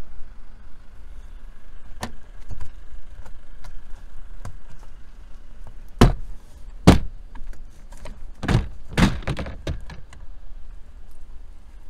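Plastic clips of a Tesla Model Y's cowl (cabin air intake) cover snapping loose as the cover is pulled up by hand: a few light clicks, then two sharp snaps about six and seven seconds in, and a cluster of knocks a couple of seconds later.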